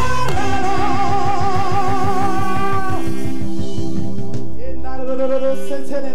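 Live band playing gospel worship music: drum kit with a fast steady pulse under a long held note with vibrato for about three seconds. The texture then thins, and a lower held note with vibrato comes in near the end.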